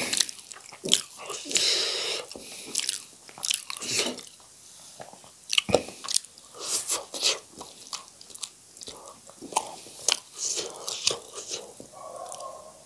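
Close-miked eating of spicy instant noodles with chopsticks: wet chewing and mouth clicks throughout, with a hissing slurp about two seconds in.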